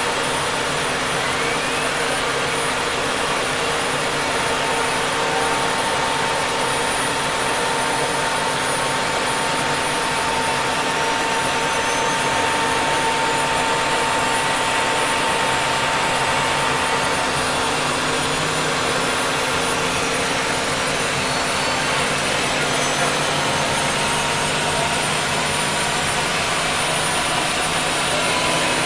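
Mil Mi-8 helicopter's turbine engines running, heard from inside the cockpit as a loud, steady roar with a high whine over it.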